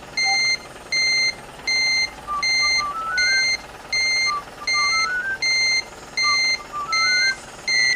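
Garbage truck reversing alarm: a regular series of short, high beeps, about one every three-quarters of a second.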